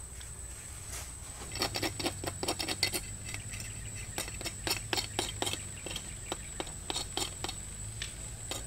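Irregular sharp clicks and taps at a wood-fired clay cooking stove, several a second, starting about a second and a half in and thinning toward the end.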